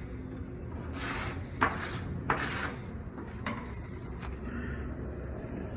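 A spreader scraping paint remover across a 1993 Nissan 240SX quarter panel in several short strokes, the sharpest about one and a half and two and a half seconds in. The stripper has not lifted the factory E-coat, so the spreader is scraping over intact paint.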